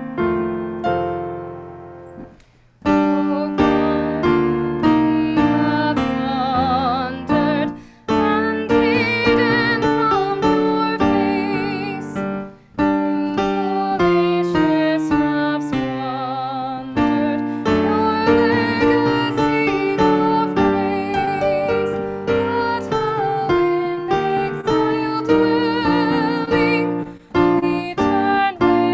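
Piano music: a slow piece of sustained chords and melody, with brief breaks about 2.5, 8 and 12.5 seconds in.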